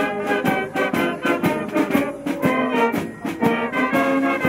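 Military wind band playing: clarinets, saxophones, trumpets and trombones together over a steady beat.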